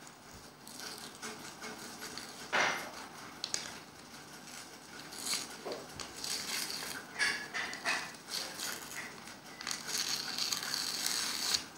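A sheet of white paper being handled, creased and torn by hand on a table: uneven crinkling and rustling with a sharper crackle about two and a half seconds in. A strip is ripped off the diagonally folded sheet to leave a square for origami folding.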